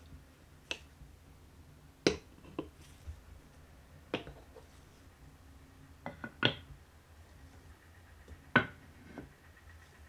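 Glass marbles clacking against wooden marble-run pieces: sharp single clicks a second or two apart, with a quick cluster about six seconds in. One strike late on leaves a high tone ringing for over a second.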